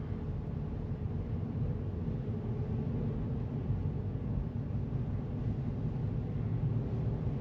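Steady low rumble of road and engine noise from a car cruising, heard from inside its cabin.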